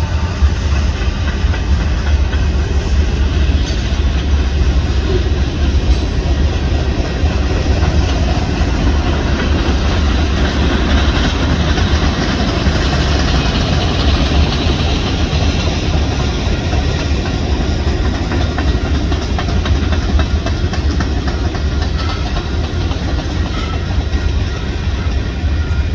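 Union Pacific freight train's cars rolling past, a steady, loud rumble of steel wheels on rail.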